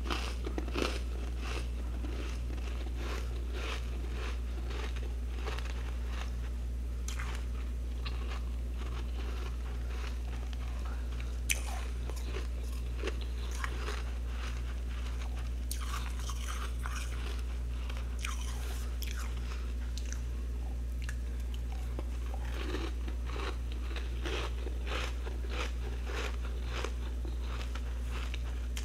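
Crunchy freezer frost crunching in a dense, irregular run of crisp crunches. A steady low hum sits underneath.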